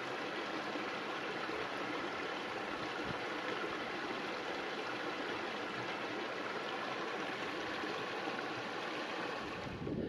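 Steady rushing of a hill stream: an even, unbroken noise of running water that changes abruptly near the end.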